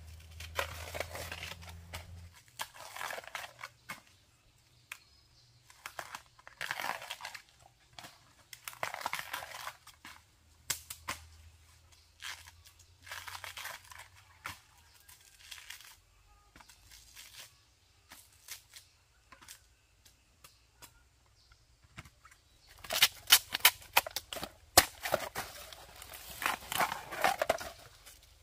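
Rustling and tearing of dry plant material in repeated swishes every two to three seconds, with a dense run of crackling snaps near the end.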